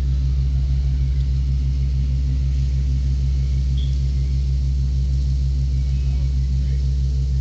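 Steady, loud, low machine drone with a fast even pulsing hum, unchanging throughout: background noise from work going on nearby.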